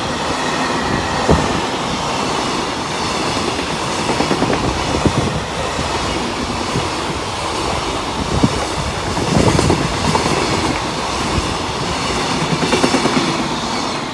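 Container freight train wagons rolling past at close range: a steady rumble with irregular clacks of wheels over rail joints. The sound falls away as the last wagon goes by at the very end.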